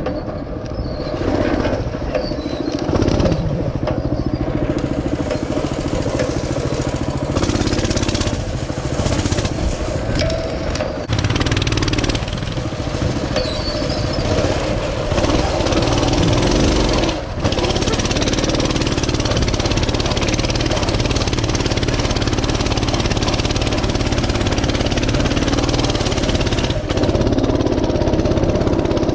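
Mini bike's small engine running under load while riding, its pitch rising and falling with the throttle, with a rushing wind noise over it.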